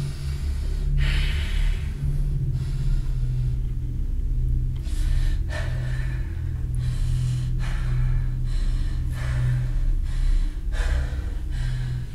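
A person breathing heavily in repeated ragged gasps, one breath every second or two, over a steady low hum.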